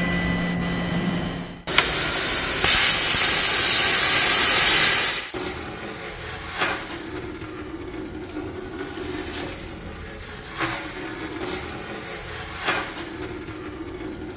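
A machine hum cuts off early on, followed by a loud, even hiss of escaping pressure that lasts about three and a half seconds and stops abruptly. After it, a quieter steady machine sound with a high thin whine runs on, with a short knock three times, several seconds apart.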